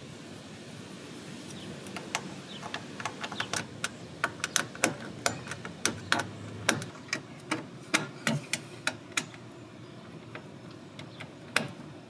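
Hand tools clicking on the bolts as the smaller RV waste valve is fastened to its flange: a run of sharp, irregular metal clicks, a few a second, starting about two seconds in and dying away near ten seconds, over a steady low hum.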